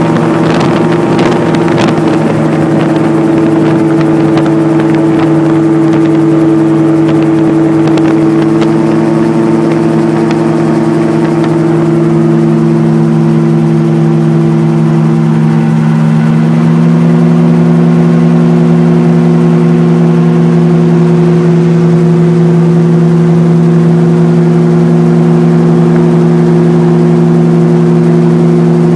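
RAF 2000 GTX SE gyroplane's engine and propeller droning steadily in cruise flight, heard from the cockpit. The tone steps up slightly in pitch and loudness a little past halfway, as power is added.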